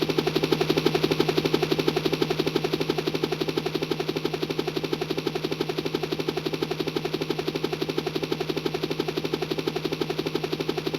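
Yamaha YPT-300 Portatone keyboard sound effect: a fast, steady electronic rattle of about a dozen pulses a second over a low, steady hum, much like machine-gun fire.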